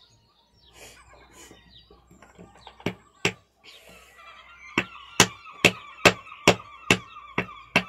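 Hammer striking a stone fossil nodule to crack it open: a few separate sharp knocks, then a steady run of strikes about two a second from about five seconds in. A faint wavering high tone sounds behind the strikes in the second half.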